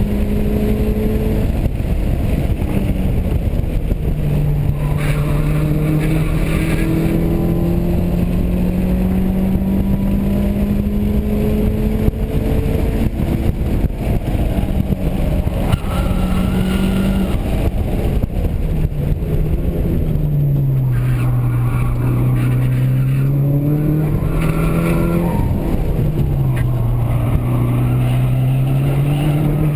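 Mitsubishi Lancer Evolution VIII's turbocharged four-cylinder engine heard from inside the cabin under hard track driving. The engine note climbs slowly, drops suddenly a couple of times at gear changes, and in the last third dips low twice and climbs again as the car slows for corners and accelerates out.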